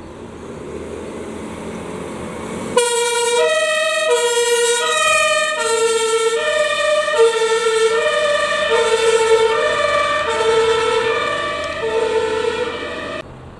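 A German two-tone emergency horn (Martinshorn) on a fire brigade command car, heard as the vehicle approaches. The passing traffic noise grows, then about three seconds in the horn switches on. It steps back and forth between a low and a high note about every 0.7 s, then cuts off sharply near the end.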